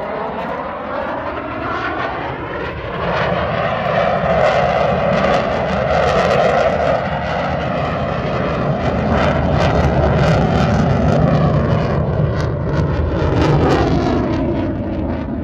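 Jet noise from a Blue Angels F/A-18 Super Hornet, a twin-turbofan fighter, flying past. The roar swells about three seconds in, stays loud through the middle with a sweeping, phasing change in tone as the jet passes, and eases off near the end.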